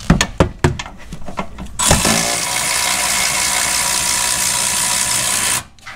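A few sharp clicks as a socket on an extension goes onto the bolt, then a cordless power tool runs steadily for almost four seconds, spinning a rear suspension fastener off a C5 Corvette, and stops suddenly.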